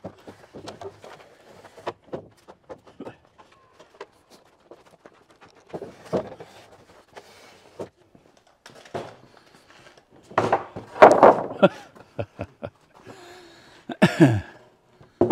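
2x6 framing lumber being carried and laid onto sawhorses and into a wall frame: scattered knocks and taps of wood on wood, a louder clatter of boards about ten seconds in, and a sharp knock near the end.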